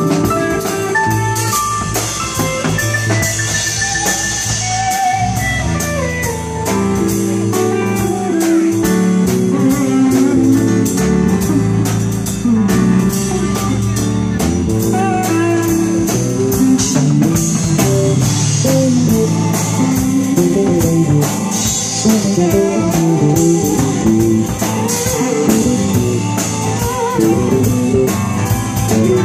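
Live band playing an instrumental passage in a bluesy, jazzy groove: electric guitar lines over bass guitar and keyboard, with the drum kit keeping steady cymbal time.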